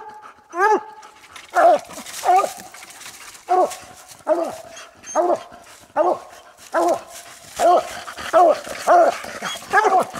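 Coonhounds barking treed at a den tree, a steady run of loud barks about once a second, each rising and falling in pitch. This is the tree bark that signals the quarry is treed or denned.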